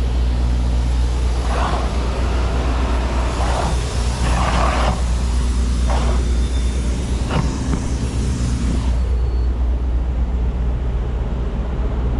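Semi truck's diesel engine idling with a steady low hum, with several short bursts of noise over the first nine seconds.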